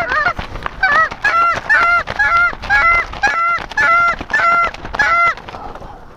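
Snow goose hand call blown in a steady run of short, identical honks, about two and a half a second, stopping a little after five seconds in: calling to draw circling snow geese back toward the decoy spread.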